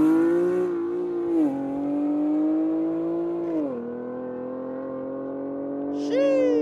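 2013 Infiniti G37's 3.7-litre V6 pulling away. The engine pitch climbs, then drops twice as it shifts up through the gears. A short higher falling whine comes near the end.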